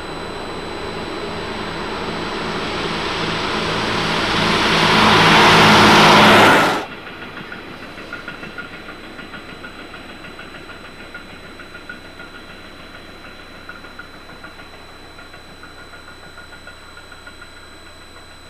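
Vintage diesel railcar passing close, its engine and running gear growing steadily louder; about seven seconds in the sound drops off suddenly. After that the railcar runs on much more quietly and slowly fades, with a faint regular clatter of wheels over rail joints.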